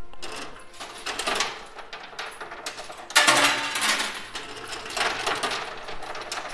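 Many coins clinking and spilling in a coin pusher machine, in several surges of rattling; the loudest starts suddenly about three seconds in.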